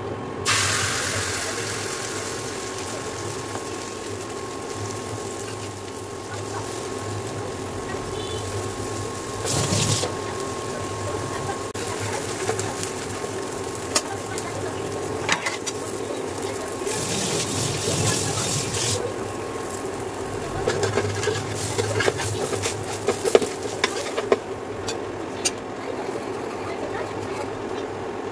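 Batter sizzling in hot oil on a tava over an induction cooktop, with the cooktop's steady hum and whine beneath. The sizzle starts just as the batter goes into the pan and swells twice. Sharp clicks and scrapes of a spatula and whisk come now and then.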